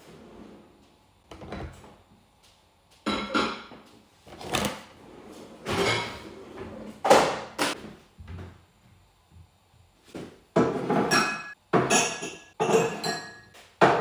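Dishes being put away: plates, glasses and plastic containers knocking and clinking, with kitchen drawers and cupboard doors opening and shutting. A string of separate clatters, busier in the second half, where a few clinks ring briefly.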